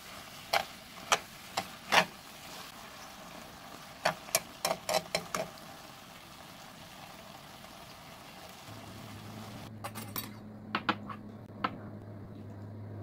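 Metal tongs clacking against a wok as stir-fried noodles are tossed: sharp clinks, a few spaced ones and then a quick cluster. About two-thirds of the way through a steady low hum comes in, with a few softer clinks.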